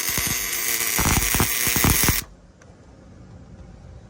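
Welder tack-welding roll cage tubing: a steady buzzing, crackling arc that stops abruptly about two seconds in.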